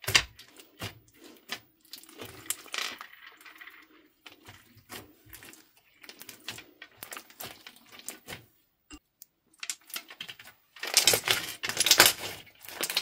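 Crunchy green slime with beads in it being kneaded and pressed by hand, giving irregular sticky pops and crackles. About eleven seconds in the slime is squeezed into a ball and the crackling becomes dense and loud.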